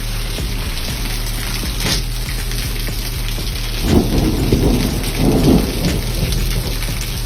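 Steady rain falling during a thunderstorm, with a rolling rumble of thunder swelling about four seconds in and dying away about two seconds later.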